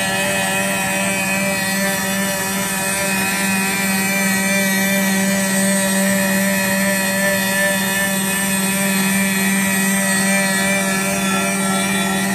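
Rotary CNC router's spindle running steadily, giving a steady whine as it machines a wooden newel post.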